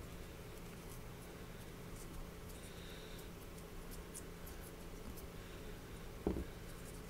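Faint scratchy rubbing of a swab scrubbing flux off a freshly soldered chip on a laptop motherboard, over a low steady electrical hum. One short knock about six seconds in.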